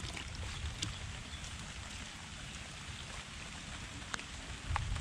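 Steady rain falling on wet ground and foliage, with water running over the concrete, and a few brief clicks of drips or splashes.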